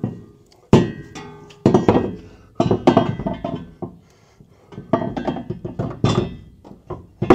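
Steel gooseneck hitch and its mounting hardware clanking against the truck's cross beams as the heavy hitch is worked up into place, a run of sharp metal knocks that each ring briefly.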